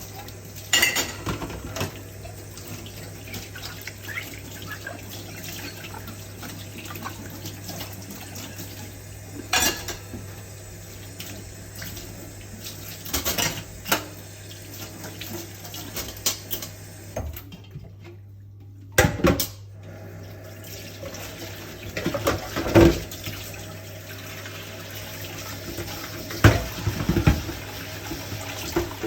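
Dishes being washed under a running kitchen tap: water running into the sink with plates and cutlery clinking and knocking against each other at irregular intervals. The water noise stops briefly a little past the middle.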